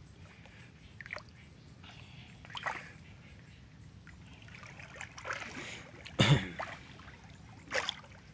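Water splashing around a person wading and swimming in a shallow, muddy river: a few separate short splashes, the loudest about six seconds in.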